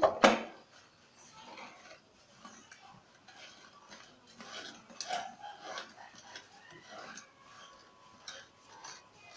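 Scattered light clicks, taps and knocks from handling tools and small metal parts, with a louder knock at the very start.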